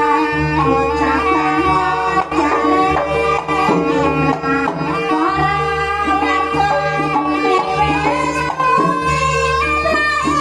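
Javanese jaranan accompaniment music playing loudly and without a break: hand drums and repeated low beats under a melody line, over a held steady note.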